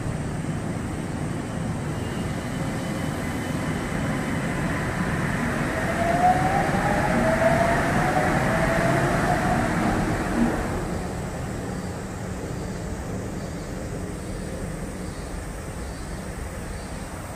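Yokohama Seaside Line 2000-series rubber-tyred automated train pulling out of the station, its Toyo IGBT-VVVF inverter whining in several rising tones as it accelerates about six seconds in, over the running noise. The acceleration whine is GTO-like for an IGBT drive. The sound then fades as the train leaves.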